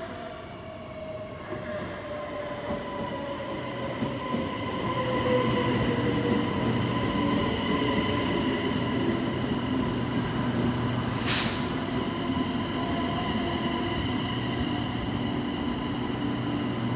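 High-speed electric multiple-unit train arriving and rolling slowly past the platform, slowing to stop. Its whine falls in pitch over the first few seconds, then steady high whining tones carry on as the cars pass and the running noise grows louder. A brief sharp noise comes about eleven seconds in.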